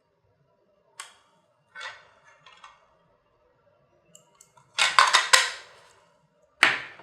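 Wi-Fi doorbell kit parts and packaging being handled: scattered light clicks and knocks, a loud run of several quick knocks about five seconds in, and one sharp knock near the end.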